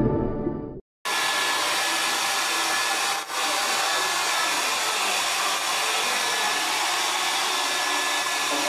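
A brief tail of intro music cuts to silence, then about a second in a loud, steady rushing noise starts, with a thin high whine running through it, dipping once briefly.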